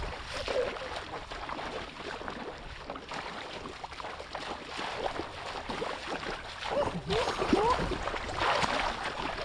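Shallow, muddy paddy water splashing and sloshing under a person's feet and hands as he wades fast and grabs at a fish: continuous sloshing broken by sharper splashes.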